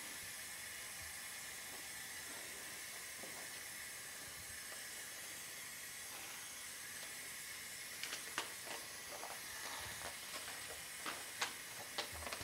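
Steady hiss of oxygen flowing at 15 liters per minute from a bottle regulator into a non-rebreather mask. Light clicks and taps from handling come in the last few seconds.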